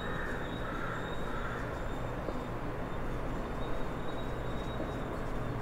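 Steady background room noise with a low hum and a faint, steady high whine, over which a marker squeaks faintly on a whiteboard as a word is written, mostly in the first second or so.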